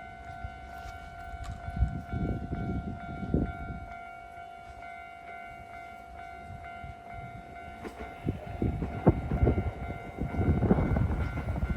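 Japanese level crossing warning bell ringing with a steady repeating tone. About eight seconds in, an approaching Kintetsu electric train adds a growing rumble and wheel clatter, which is loud by the end.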